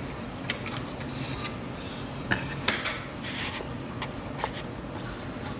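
Hands lifting the build plate out of a small wooden 3D printer and setting it down on a desk: a few scattered light clicks and knocks with scraping and rubbing between them, over a faint low hum.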